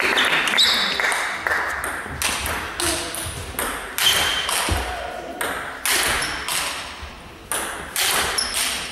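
Table tennis rally: the ball clicks off the bats and the table again and again, about every half second, with each hit ringing briefly in the hall.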